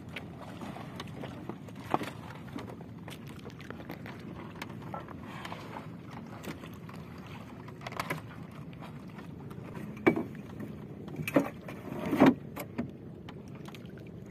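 Steady wind and water noise around a small wooden outrigger boat, with scattered knocks and thumps from fishing line and a weighted sack being handled against the hull, the loudest few bunched near the end.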